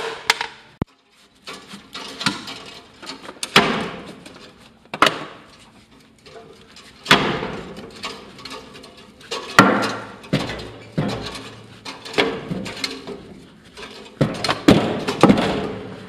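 Parts of a kitchen sink base cabinet being torn out by hand: a string of irregular knocks, cracks and thuds, roughly one every second or so.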